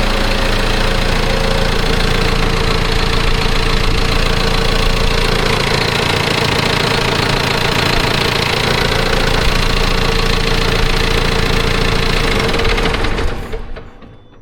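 A John Deere 6430 tractor's diesel engine idling steadily, dying away near the end.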